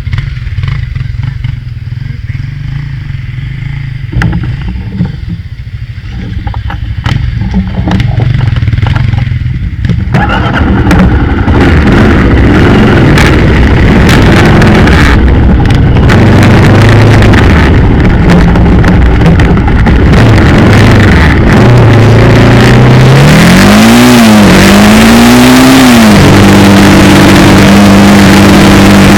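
Motorcycle engine running while riding, growing louder about ten seconds in, then revving up and down twice near the end before holding a steady high pitch.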